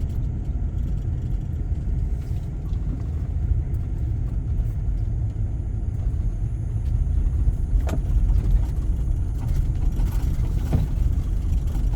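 Car driving slowly, heard from inside the cabin: a steady low rumble of engine and road noise, with a couple of faint clicks near the end.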